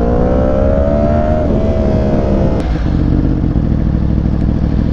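Yamaha R1 sportbike's inline-four engine pulling under throttle on the move, its pitch rising steadily for about two and a half seconds. A click then ends the rise, and the engine settles into a steadier, lower sound.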